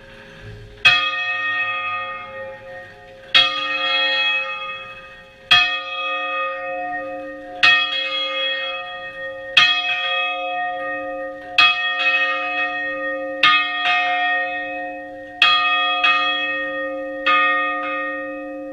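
Church bells swung full circle (volteo), heard from inside the belfry: clapper strikes about every two seconds, each leaving a long ringing hum, with quick pairs of strikes in the second half before the ringing dies away.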